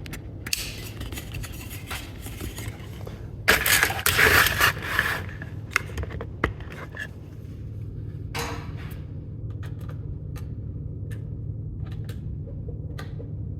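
Hands handling and moving small hard objects: rustling and scraping, a loud bout of clattering about three and a half seconds in, then scattered sharp clicks, over a steady low hum.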